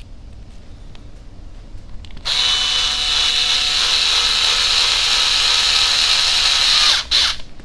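Cordless drill-driver turning a screw in the chassis of an RC crawler. It runs steadily for about four and a half seconds, starting about two seconds in, then stops abruptly with a brief second pulse.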